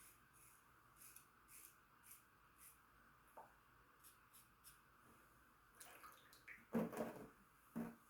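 GEM push-button single-edge safety razor scraping through three days of stubble in faint short strokes, about two a second. Near the end, a brief louder splash of water.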